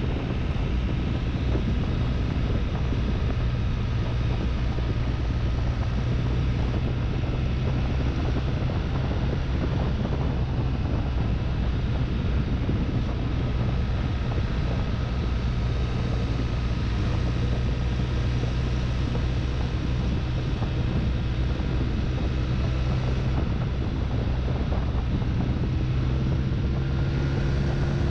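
A BMW touring motorcycle's engine running steadily at cruising speed, with wind rushing over the microphone. The engine note rises a little near the end.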